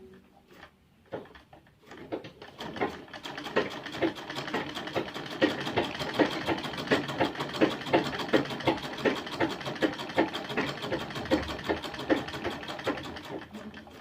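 Pfaff sewing machine stitching: a fast, even mechanical clatter of needle strokes that picks up about two seconds in, runs steadily, then slows and stops near the end.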